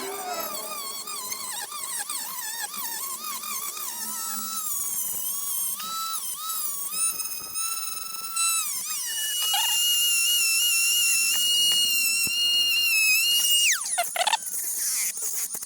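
High-speed rotary tool with a cutting disc whining as it grinds material away, its pitch dipping and wavering under load. It then holds a steady higher whine for a few seconds before it is switched off and winds down near the end.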